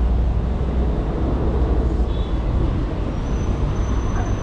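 Steady city street traffic: motor vehicles passing, with a deep continuous rumble. A faint high whine starts about three seconds in.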